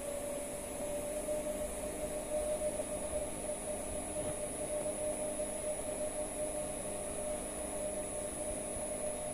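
Permanent magnet synchronous motor running under inverter drive: a steady whine, with a faint thin high-pitched tone above it.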